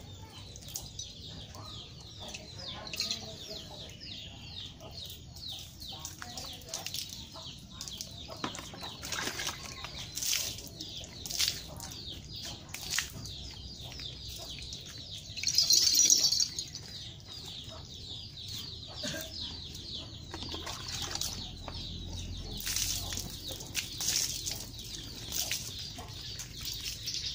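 Water poured from a plastic scoop splashing over a horse's coat and onto the wet ground, with one louder pour about halfway through. Birds chirp constantly in the background.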